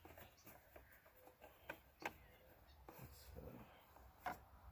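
Near silence broken by a few faint clicks and rustles of wiring and plastic connectors being pushed into an ATV's wiring box.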